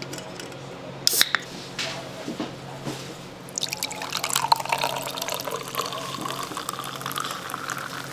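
Liquid running or pouring, starting about three and a half seconds in after a few sharp clicks and knocks, with a pitch that edges slowly upward.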